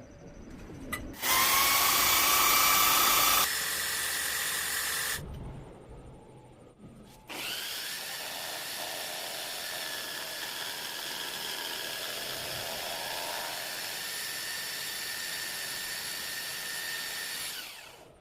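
Small electric power tool running in separate runs with a steady whine: a loud run of about two seconds, a quieter one, then a longer steady run of about ten seconds that cuts off near the end, as used for cutting gear teeth on a lathe.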